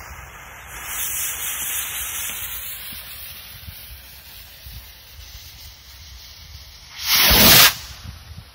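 Lit fuse of a consumer skyrocket sparking, then the rocket's motor hissing loudly as it lifts off, the hiss fading over a few seconds as it climbs. About seven seconds in comes a loud half-second rush of noise.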